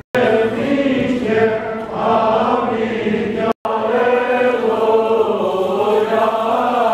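Armenian liturgical chanting in long, slowly moving sung notes. It breaks off for a split second a little past halfway, then carries on.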